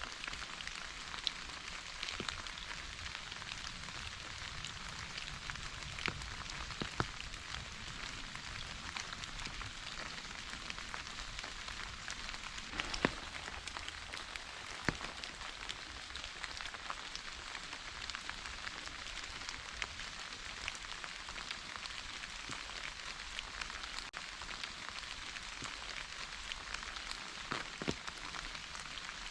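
Steady rain falling, a constant patter with single heavier drops ticking here and there.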